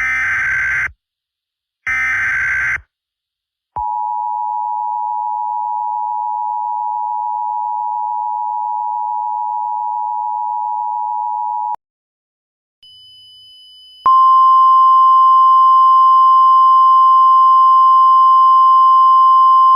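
Emergency Alert System tornado-warning tones. First come the last two short screeching SAME header data bursts, then the two-tone attention signal held steadily for about eight seconds. After a gap of about two seconds, the louder single-pitch NOAA Weather Radio 1050 Hz warning alarm tone starts about 14 seconds in and holds steady.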